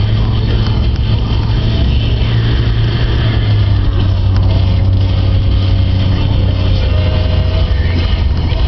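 Car driving, heard from inside the cabin: a steady low drone of engine and tyre noise.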